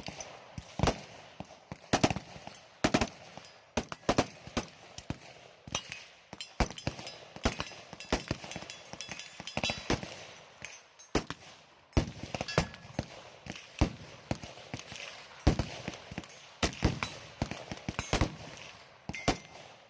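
Gunfire on a shooting range: many sharp shots from several guns going off at irregular intervals, often one or two a second, some in quick clusters.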